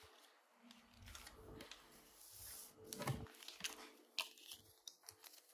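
Faint rustling and a few light clicks and taps as a ring binder with clear plastic zip pockets is handled and opened.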